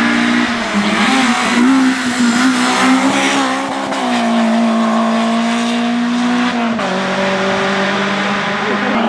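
Rally hatchback engine held at high revs as the car powers through a tight hairpin and drives away. The engine note wavers at first, holds steady, then steps down sharply once about seven seconds in and carries on.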